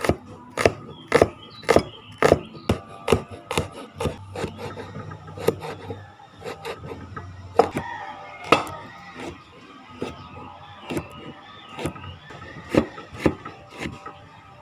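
Kitchen knife chopping vegetables on a wooden chopping board: sharp knocks of the blade striking the board, about two a second for the first few seconds, then more spaced out.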